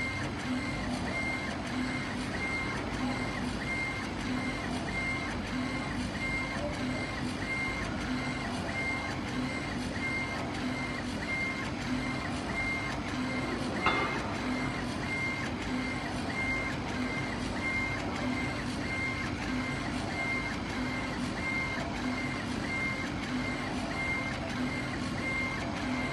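CO2 laser engraving machine raster-engraving stone: a steady hum of the running machine with a high whine that breaks off and restarts about twice a second as the head sweeps back and forth. One brief sharp click about halfway through.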